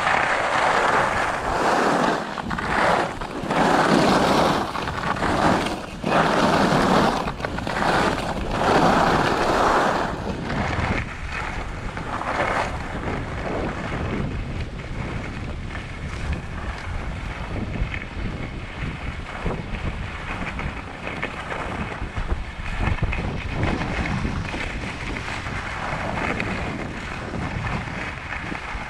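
Wind rushing over the microphone of a skier's camera, mixed with skis sliding on packed snow, during a downhill run. It surges louder several times in the first ten seconds, then settles to a steadier, quieter rush.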